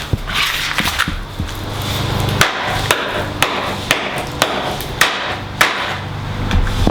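Repeated sharp blows striking a PS4 controller charger as it is beaten to destroy it, about ten hits spaced half a second to a second apart.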